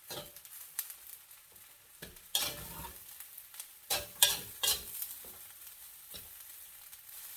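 A spatula scraping and knocking against a pan as fried rice with egg is stirred, in irregular strokes, over a faint frying sizzle.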